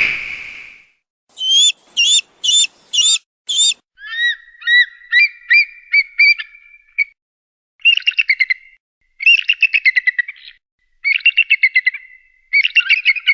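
Eagle calling: five short, sharp, high calls, then a run of piping notes and several bouts of rapid chattering trills.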